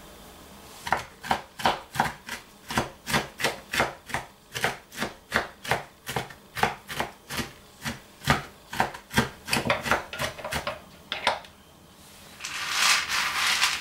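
Kitchen knife chopping walnuts on a wooden cutting board, a steady run of sharp chops at about three a second. The chopping stops near the end, followed by a brief rustling.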